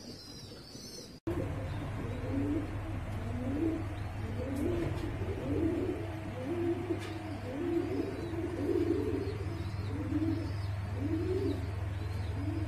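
Domestic fancy pigeons cooing, a run of low coos one after another starting about a second in, over a steady low hum.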